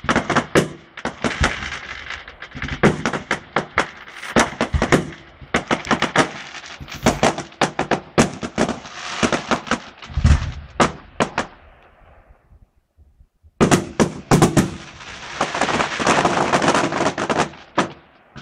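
Fireworks display: rapid, irregular bangs and crackling, some close together like a volley. It dies away about twelve seconds in, then a dense run of crackling starts again a second and a half later.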